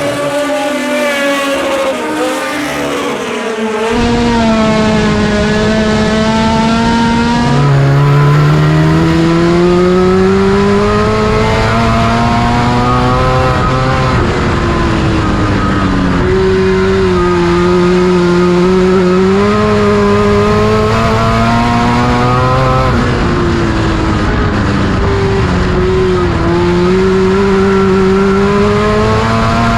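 Front-wheel-drive import race car engine running hard on a dirt oval. Its pitch climbs for several seconds at a time and then drops back, again and again, as it accelerates down the straights and lifts into the corners.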